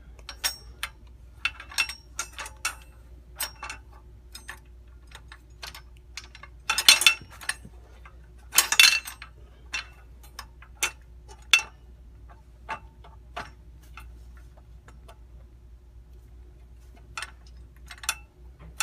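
Light clicks and clinks of metal display-rack parts being handled and fitted together, with two louder clattering knocks about seven and nine seconds in.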